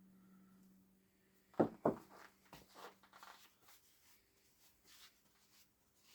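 Small parts being handled on a workbench: two sharp knocks close together about a second and a half in, followed by a scatter of light clicks and taps. A faint steady hum fades out before the knocks.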